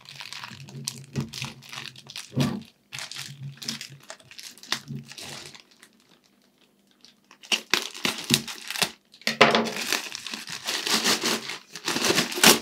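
Clear plastic wrapping crinkling and tearing as it is cut open and pulled off a bicycle handlebar, in irregular rustling bursts that grow louder and denser in the second half.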